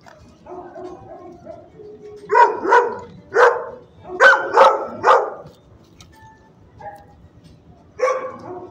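Dog barking: six sharp barks in two quick runs of three, then one more near the end.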